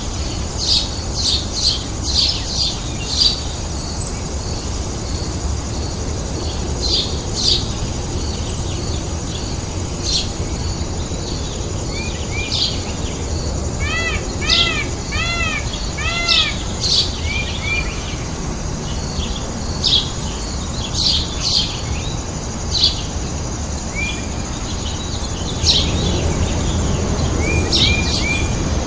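Birds chirping: many short, high chirps throughout, with a brief run of about eight repeated arched calls about halfway through.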